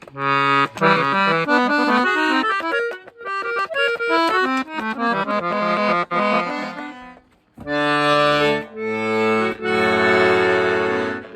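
Paolo Soprani Italia chromatic accordion being played as a test after a repair: quick runs of single notes, then after a short break, held chords over low bass notes.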